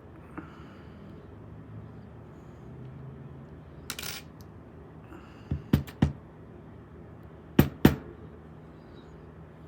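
Small metal lock parts clicking and tapping as they are handled and set down on a hard surface: scattered light clicks, a brief scrape about four seconds in, a quick run of four clicks, then two loud sharp clicks close together near the end.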